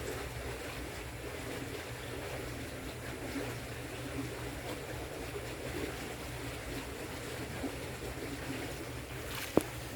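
Water trickling and lapping over a steady low hum, with one sharp click near the end.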